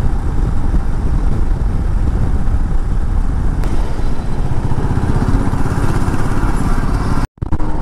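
Motorcycle riding along a highway: the engine running steadily under a heavy low rumble of wind on the microphone. The sound cuts out for a moment near the end.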